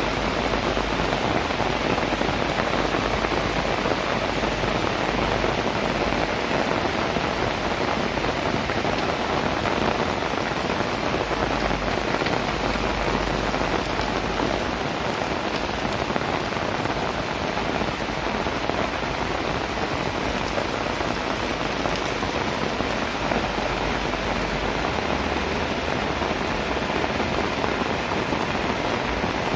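Heavy rain falling steadily, a dense, even hiss of rain on surfaces that does not let up.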